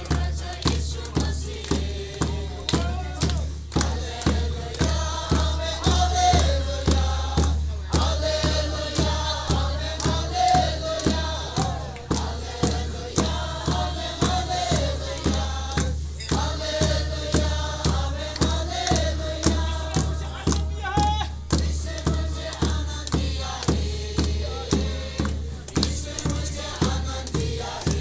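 A crowd singing a gospel song together, carried by a steady beat on a big hand-struck drum about twice a second, with hands clapping along.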